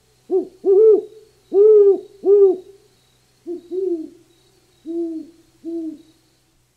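Owl hooting: two phrases of about four hoots each, the second phrase softer. Each hoot swells and arches slightly up and down in pitch.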